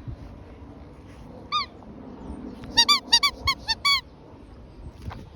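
Spiky squeaky donut dog toy squeaking as a dog chews it: one squeak, then about a second later a quick run of about seven squeaks.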